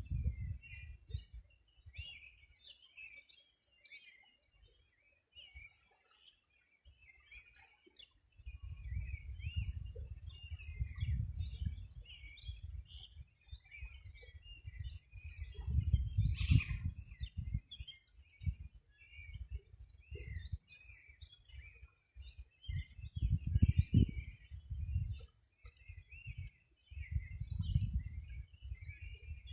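Several birds chirping and singing in a steady, overlapping chorus of short high notes. Bursts of low rumble come and go a few times and are the loudest part of the sound.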